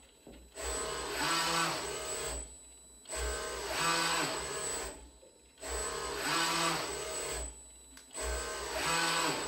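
Servo motors of a small ABB six-axis industrial robot arm whining as its joints drive the arm through a move, in four bursts of about two seconds with short pauses between.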